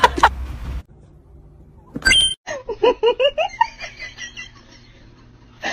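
A sharp click, then a person giggling in a quick run of short bursts for about two seconds.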